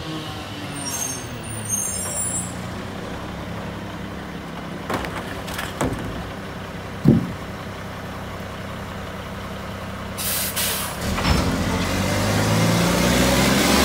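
Front-loader garbage truck's diesel engine idling at the curb while a plastic trash bin is knocked against its carry can a few times. Near the end the air brakes hiss twice as they release, and the engine revs up as the truck moves off.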